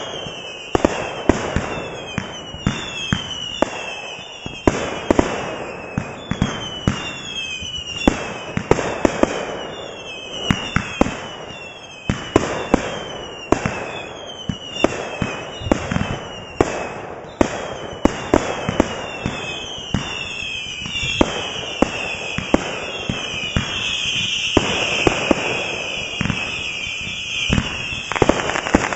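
Aerial firework cakes firing: a rapid run of sharp bangs as shells burst overhead, with short whistles falling in pitch between them. About three-quarters of the way through, the whistles overlap in a dense stretch.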